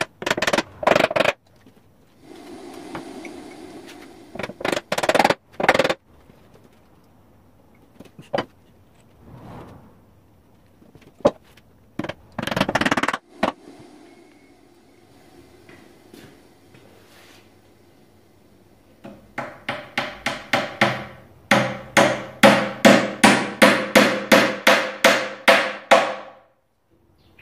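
Small hammer tapping a wooden wedge into the top of a Windsor chair back spindle to lock it in the bow: a fast, even run of sharp strikes, about three to four a second, over the last several seconds and getting louder. Earlier come a few scattered knocks and clatters.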